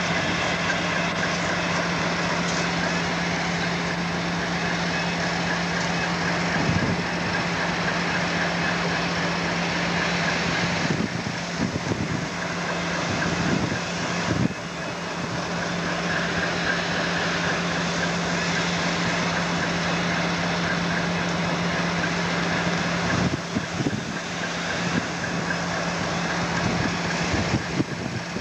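Class 56 diesel locomotive 56107, with its 16-cylinder Ruston-Paxman engine, running with a steady low hum as it slowly hauls a train of steel wagons past.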